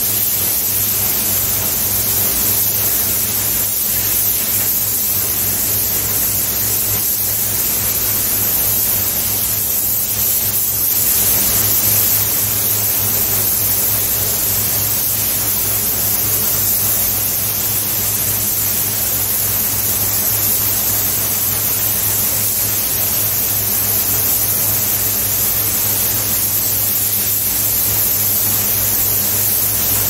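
Gravity-feed compressed-air spray gun hissing steadily as it sprays clear coat, over a steady low hum.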